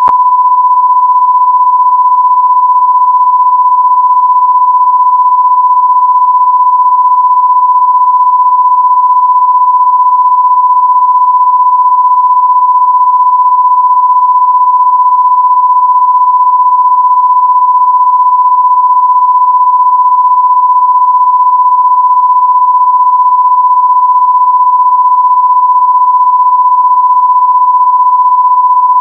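A loud, steady pure tone at about 1 kHz, held unbroken at one pitch and level.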